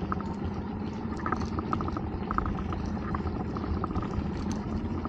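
Small boat's outboard motor idling steadily while the boat drifts, with light splashing and lapping of water around the hull.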